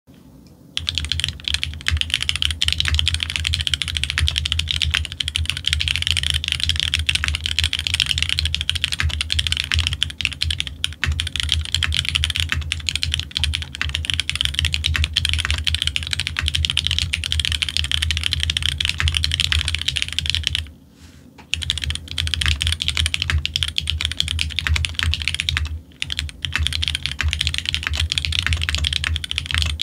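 Fast, continuous typing on a custom F1-8X mechanical keyboard with an aluminium plate, lubed Hyperglide Black linear switches and Leopold keycaps: a dense run of keystrokes that starts about a second in. It breaks off twice, briefly, about two-thirds of the way through and again a few seconds later.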